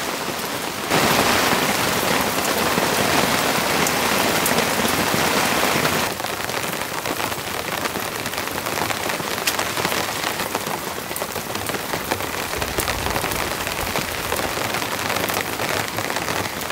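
Heavy rain pouring steadily through the forest, a dense even hiss with scattered drip ticks, louder from about a second in until about six seconds in.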